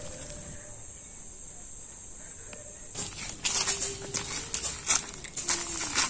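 Dry leaf litter crackling and rustling as a freshly hooked kendai (carp) is landed and grabbed on the bank, over a steady high insect drone. The crackling starts about halfway in and goes on in quick irregular bursts.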